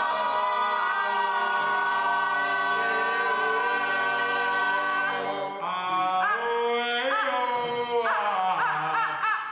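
Choir-like music of layered, held vocal tones, steady for about five seconds, then sliding in pitch and breaking into quick rising-and-falling notes near the end.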